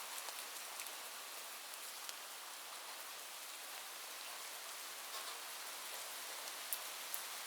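Light rain falling steadily: a soft even hiss with scattered individual drops ticking, a few sharper drop hits near the end.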